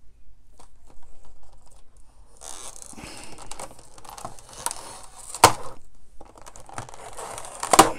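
Stiff plastic blister pack being pulled open by hand, crinkling and crackling, with two loud sharp cracks as the plastic gives, one about halfway through and one near the end.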